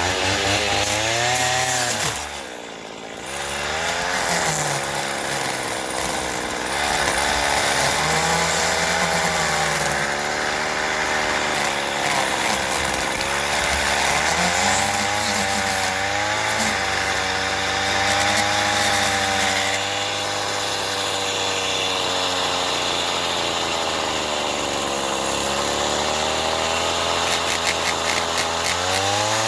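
Stihl 85R two-stroke trimmer with a Grass Gator blade head running at high throttle, the engine pitch sagging and climbing again and again as it cuts heavy weeds. The engine drops off briefly about two seconds in, then picks back up.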